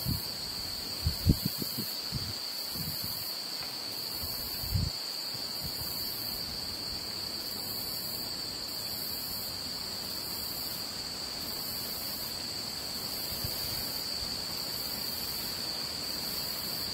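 Steady high-pitched insect chorus, with a fainter, higher layer that pulses about once a second; a few low thumps come in the first five seconds.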